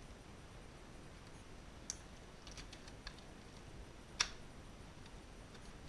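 A few light clicks and taps from a toy blaster and its cardboard-and-plastic packaging being handled, the sharpest about four seconds in, over a faint steady hiss.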